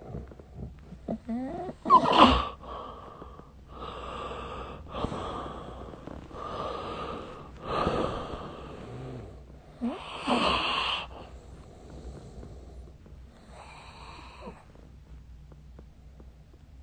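A sleeping person snoring: a run of noisy breaths a second or two apart. The loudest comes about two seconds in, another loud one around ten seconds in, and the breathing grows fainter near the end.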